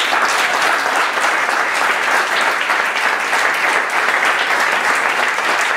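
Audience applauding: many people clapping together, starting all at once and holding steady.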